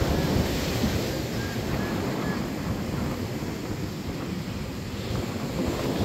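Wind buffeting the microphone over the steady wash of surf on a beach, with a few faint short tones about two seconds in.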